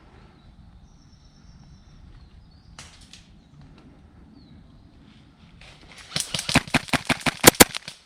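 Airsoft gun firing a rapid burst of sharp, evenly spaced shots, about a dozen in two seconds, starting about six seconds in and stopping just before the end, after several seconds of quiet rustling.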